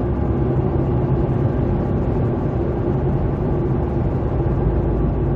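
A car's engine and tyre noise heard from inside the cabin while driving: a steady low hum with no sudden sounds.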